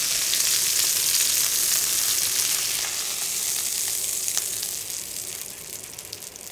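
Chicken thighs sizzling in hot oil and butter in a frying pan, a steady crackling hiss that fades toward the end. A single light tap about four seconds in.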